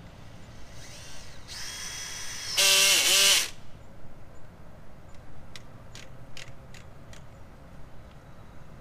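Cordless drill with a spade bit spinning up with a rising whine, then boring into vinyl siding: about two and a half seconds in it gets much louder for about a second, its pitch sagging under the load, and then stops. A few light clicks follow.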